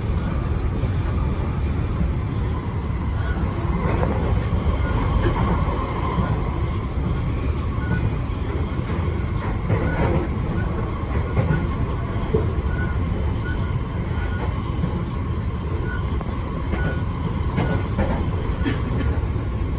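Interior running noise of an SMRT C151C metro train between stations: a steady low rumble of wheels on the track, with a faint whine coming and going and a few short clunks.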